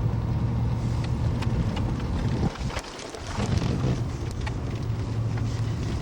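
A car driving on a snowy road: a steady engine and road rumble with a low hum that drops briefly about two and a half seconds in. Scattered sharp clicks and ticks run through it.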